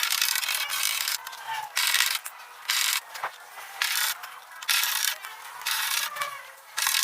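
About ten rhythmic scraping strokes on the sheet metal of a rusty car body panel, each roughly half a second long, typical of hand abrasive work on the metal.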